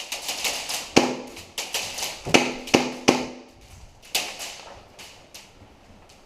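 Airsoft guns firing an irregular string of single shots, sharp cracks a fraction of a second apart, a few much louder than the rest. The shooting stops about five and a half seconds in.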